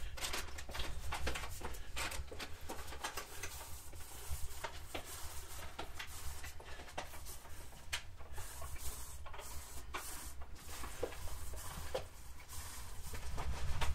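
Lacquer roller on an extension pole working wet floor lacquer over a wooden herringbone parquet floor, with footsteps on the wood: faint, irregular clicks and ticks throughout.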